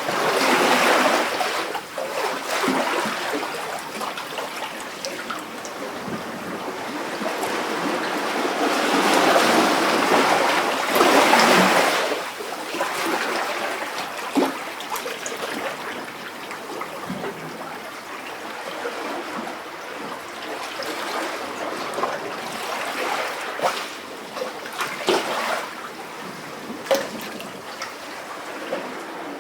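Sea waves lapping and sloshing in a rock cavity. The water swells in surges, loudest about a third of the way in, and ebbs into trickling and gurgling with small sharp splashes.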